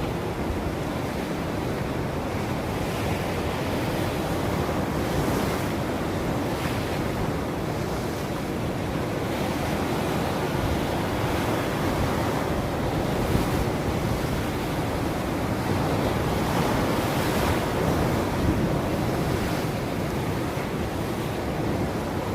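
Ocean waves breaking and washing on a shore, a continuous surf hiss that swells and eases gently several times.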